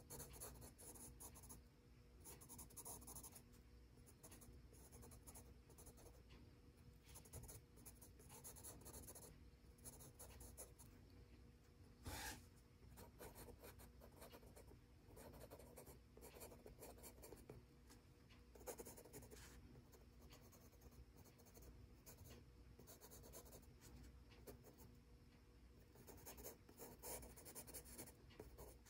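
Faber-Castell Pitt Graphite Matt HB pencil scratching faintly on gray sketchbook paper in short, repeated hatching strokes, with one sharp tap about twelve seconds in.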